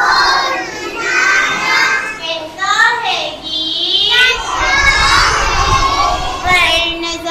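A class of kindergarten children, three to four years old, reciting a lesson aloud together in many loud, high voices.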